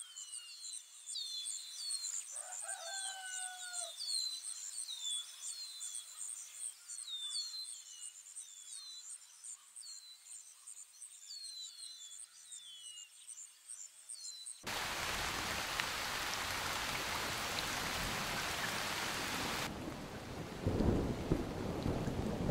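Birds chirping over a steady high insect trill, with one longer, lower call about two and a half seconds in. About fifteen seconds in it cuts suddenly to heavy rain, with a rumble of thunder near the end.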